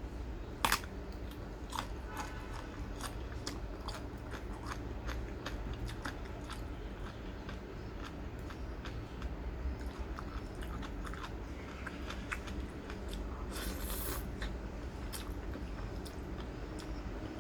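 A person chewing and biting crunchy food close to the microphone: irregular sharp crunches and mouth clicks, with a louder crunch burst near the end.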